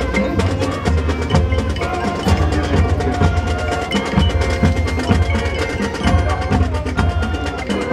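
High school marching band playing: brass and woodwinds holding sustained chords over a steady run of drum and mallet-percussion strokes.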